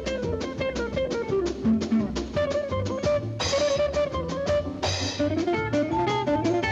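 Lively cartoon music: quick plucked-string notes carrying a melody over a steady drum beat, with two short crash-like hits about three and a half and five seconds in.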